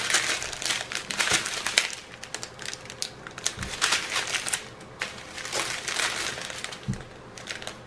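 Small clear plastic bags of diamond-painting drills crinkling as they are handled and shuffled, in bursts of dense crackling with short quieter pauses.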